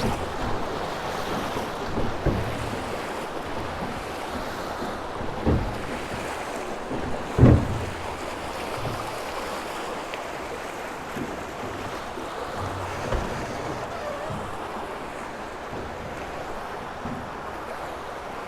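Steady rush of river water with wind buffeting the microphone, broken by a few short knocks, the loudest about halfway through.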